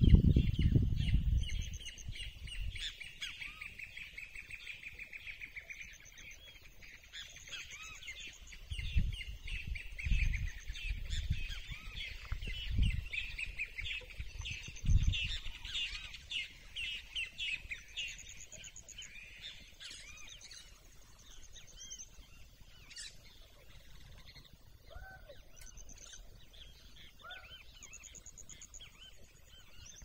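Several songbirds singing and chirping together in a dense, overlapping chorus of quick notes that thins out in the second half, with short high trills repeating now and then. Low rumbles break in at the start and a few times between about 9 and 15 seconds.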